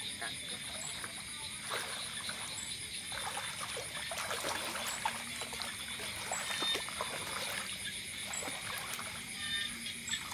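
Shallow pond water splashing and trickling as a person wades in and dips a bamboo fishing rod and line, in irregular bursts over a steady, high-pitched night chorus.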